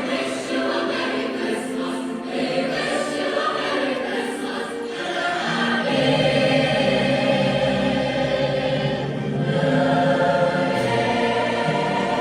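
A choir singing sustained chords, growing louder and fuller about halfway through as lower notes come in.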